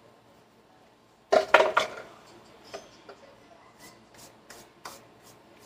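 Kitchen things being handled: a short burst of three or four rattling knocks about a second in, then a few light clicks and taps.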